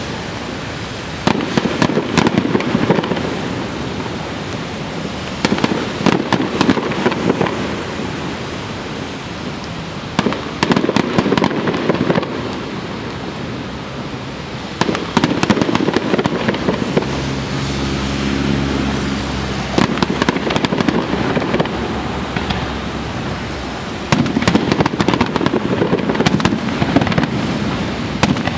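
Aerial fireworks shells bursting in repeated volleys, each a cluster of sharp bangs and crackles, about every four to five seconds.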